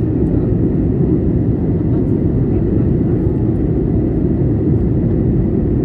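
Steady, even cabin noise of a jet airliner in flight: the low rush of engines and airflow, with no breaks or changes.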